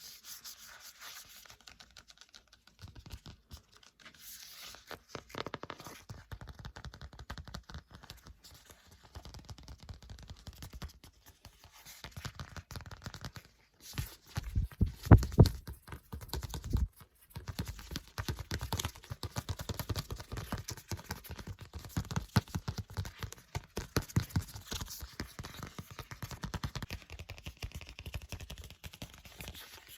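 Book pages being turned and flipped close to the microphone: continuous paper rustling and scraping, with a louder, heavier stretch about halfway through.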